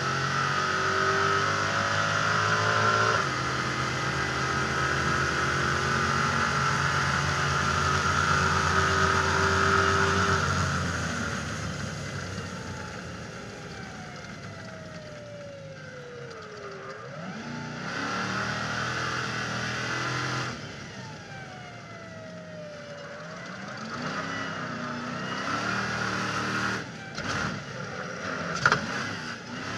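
Stadium Super Truck's V8 race engine pulling hard at full throttle, with a step down in pitch about 3 seconds in as it shifts up. About 11 seconds in it lifts off and the revs slide down. It gets a short burst of throttle, lifts again, then picks up speed, with a few sharp knocks near the end.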